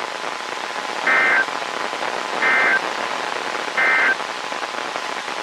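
Emergency Alert System end-of-message code over NOAA Weather Radio: three short bursts of buzzing two-tone digital data, about a second and a half apart, over steady radio hiss. They mark the end of the warning broadcast.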